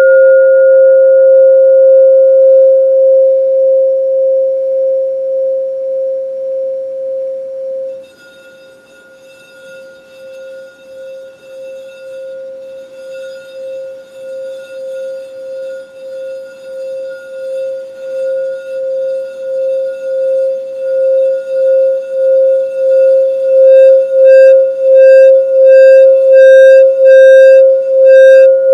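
Lepidolite crystal singing bowl, tuned to 528 Hz, ringing after a strike and then damped suddenly about eight seconds in. It is then played around the rim, so its single tone swells back up with an even pulsing wobble of about one to two pulses a second and grows loud near the end, where a higher overtone pulses in and out.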